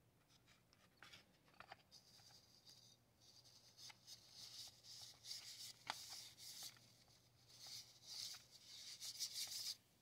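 Paintbrush bristles scrubbing dust off a plastic heater fan and its shroud: faint dry swishing in a run of strokes, with a few light clicks of plastic being handled. The brushing stops just before the end.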